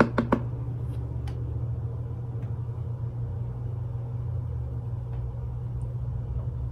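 A steady low hum, with a few quick clicks right at the start and two fainter ones about a second in as a makeup brush is worked in a powder palette.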